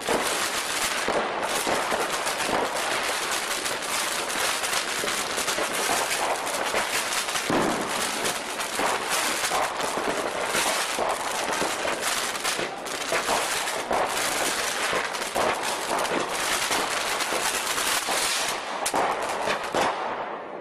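Fireworks going off: a dense, unbroken run of rapid crackling and popping that thins out a little near the end.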